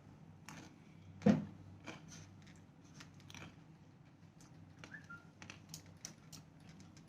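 Quiet eating sounds: faint scattered clicks and smacks of chewing and cutlery, with one louder short sound about a second in.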